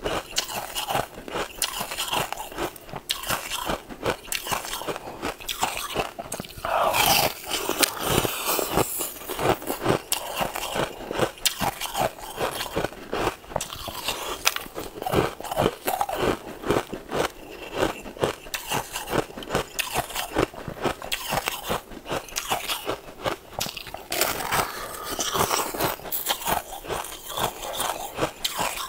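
Close-up biting and chewing of a translucent pink sweet, with dense, irregular crisp crunches and crackles throughout.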